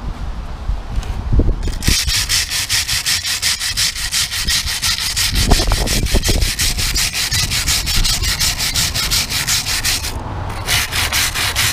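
Wire brush scrubbing rust off a rusty metal plate in rapid, even back-and-forth strokes, starting about two seconds in, with a brief pause near the end before the scrubbing resumes.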